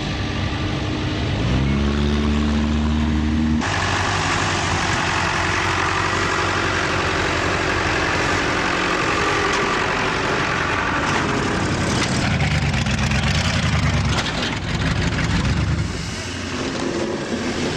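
Demolition derby car engines running, one revving up with a rising pitch about two seconds in. Then a sudden change to a loud, steady rush of engine and crowd noise.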